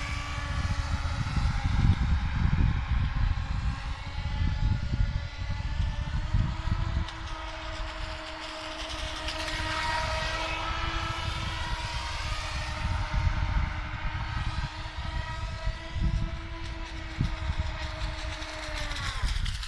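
Electric drive motor of a homemade RC trimaran running on a 4S LiPo: a steady high whine with several overtones that shifts pitch slightly and grows brighter as the boat passes close. It drops away and stops near the end. An irregular low rumble runs underneath.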